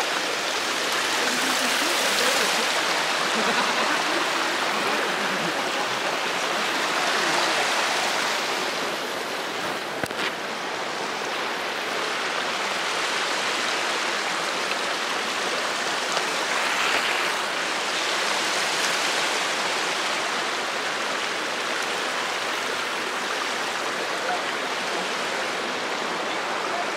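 Hot spring water running steadily over rocks down a small rocky cascade, with feet wading and splashing in the shallow pool in the first several seconds.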